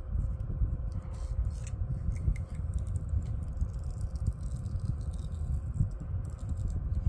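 Braided fishing line being pulled off its plastic spool by hand, with scattered light ticks and rattles from the spool, over a steady low rumble.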